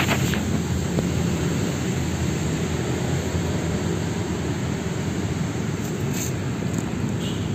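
Steady low rumbling noise with a few faint clicks.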